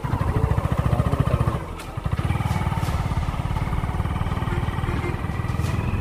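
Motorcycle engine running under way at steady road speed; the engine sound drops away briefly a little under two seconds in, then picks up again and runs on evenly.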